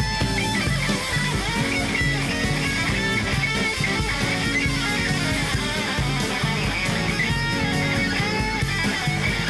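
Jazz-fusion quartet playing live: electric guitar over electric bass and drums, with keyboards, heard off an FM radio broadcast.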